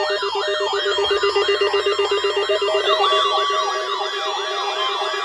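Several weather alert radios sounding their alarms together: overlapping electronic siren sweeps rising and falling about three times a second over a pulsing low tone, with a steady high tone joining about three seconds in.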